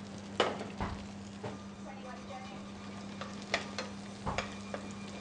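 Sea bass fillet and greens frying in a pan, a soft sizzle, with several sharp clicks of a metal spoon against the pan. A steady low hum runs underneath.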